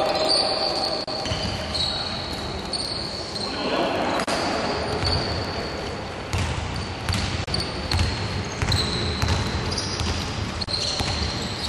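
Basketball game sounds: a ball dribbled on a hardwood court in repeated thuds, sneakers squeaking on the floor, and players' indistinct shouts.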